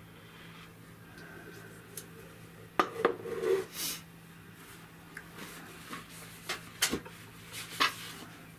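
Scattered sharp clinks and knocks of a metal can of contact adhesive and its lid being handled and set down, a cluster about three seconds in and a few more near the end.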